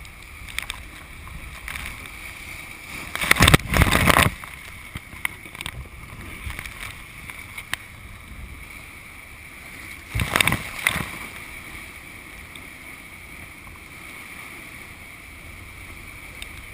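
Colorado River whitewater at very high flow rushing steadily past a raft. Two loud bursts of noise, each about a second long, come about three seconds in and about ten seconds in.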